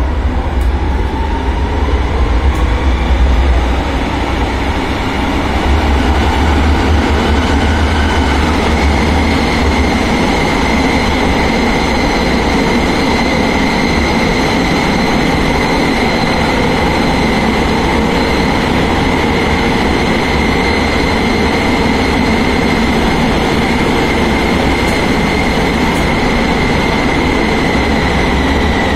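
Inside a Be 2/4 'Tram 2000 Pony' tram under way: the electric traction drive whines in rising tones as the tram accelerates over the first several seconds, then holds a steady high whine over the low rumble of wheels on rails at running speed. Near the end the whine begins to sink slightly as the tram starts to slow.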